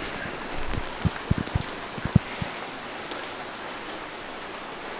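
Steady rain falling on a concrete driveway, an even hiss, with a few soft low thumps in the first couple of seconds.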